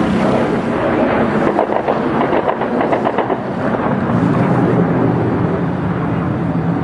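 Warplane's jet engine roaring overhead as a loud, steady low rumble, with a patch of rapid crackling about two to three seconds in.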